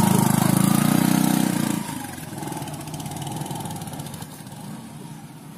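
A small motorcycle engine carrying four riders pulls away close by, loud and pulsing, then fades sharply about two seconds in as the bike rides off and keeps on faintly in the distance.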